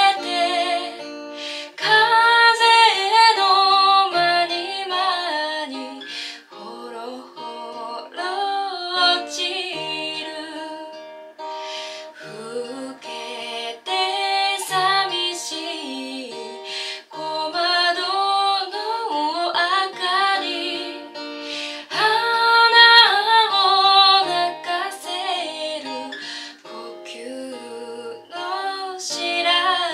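A woman singing a slow song in Japanese, accompanying herself on an acoustic guitar; her long held notes waver with vibrato, with short breaks between sung lines.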